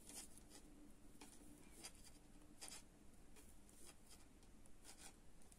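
Faint, irregular clicks and scrapes of metal knitting needles touching and sliding against each other as stitches are worked, about one or two clicks a second, over near silence.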